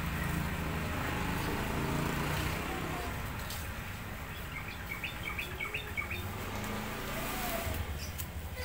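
Cotton candy machine running with a steady low motor hum that eases about two and a half seconds in; a few short bird chirps come in about halfway through.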